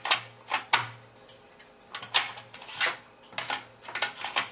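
A 3.5-inch floppy disk pushed into a PC floppy drive modded for an Amiga 1200 and ejected again: several sharp plastic-and-metal clicks as the disk seats and the eject mechanism releases it, with a faint low hum under some of them.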